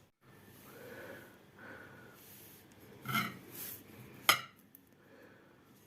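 Quiet breathing and kitchen handling noises, with a short scraping burst about three seconds in and a sharp knock, the loudest sound, about a second later, as of a dish being set down.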